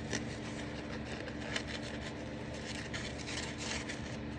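Soft rubbing and rustling of fingers sliding and pressing a paper tag against lace, with a few slightly stronger strokes, over a faint steady low hum.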